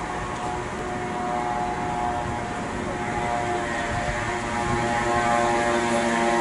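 Steady engine drone of a paddle steamer coming in slowly, a hum with many pitched overtones that grows a little louder in the second half.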